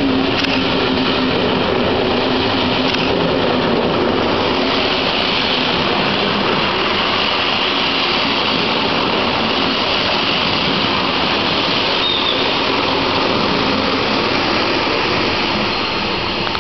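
Passenger coaches of a long special train rolling past close by: a steady, loud wheel-on-rail rumble and hiss that eases slightly near the end as the train draws away.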